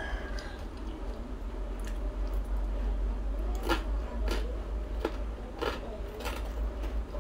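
Close-miked chewing of crispy fried rice crust, with a run of about five sharp crunches, one every two-thirds of a second or so, in the second half, over a steady low hum.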